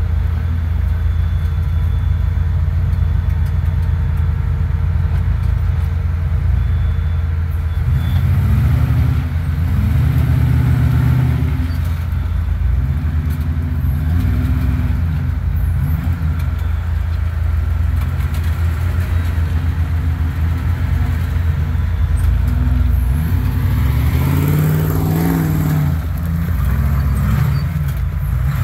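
Off-road 4x4's engine running steadily, then revved up and down in a series of short pulls from about eight seconds in as it works its way up a rock-crawling obstacle. The strongest rise and fall of revs comes near the end.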